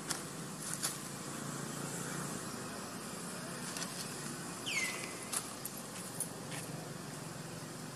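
Several sharp crunches and clicks of a macaque biting and chewing fruit, over steady outdoor background noise. A little under five seconds in comes one short, high chirp that falls in pitch.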